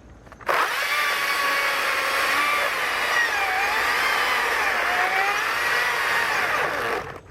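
STIHL battery-powered electric chainsaw starting about half a second in and cutting, its motor whine sagging and recovering in pitch as the chain bites into the wood. It stops near the end, then gives a short burst.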